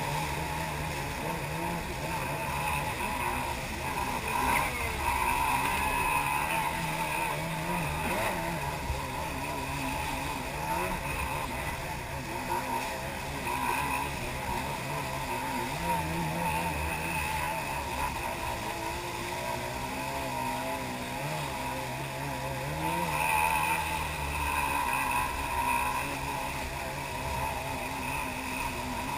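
Jet ski engine running at speed, its pitch wavering up and down as the throttle changes over the wake, under a steady rush of water and wind.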